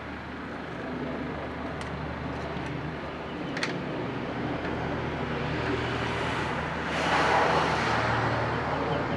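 Steady low engine hum of passing road traffic, swelling as a vehicle goes by about seven seconds in, with a few short high clicks.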